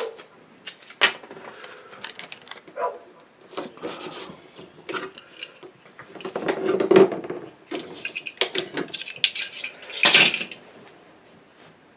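Small objects being handled on a work table: scattered clicks, knocks and light clatter, with longer scraping or rustling noises about halfway through and again near the end, the later one the loudest.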